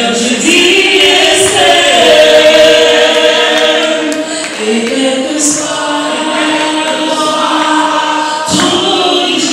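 A large mixed group of men and women singing a song together like a choir, holding long sung notes.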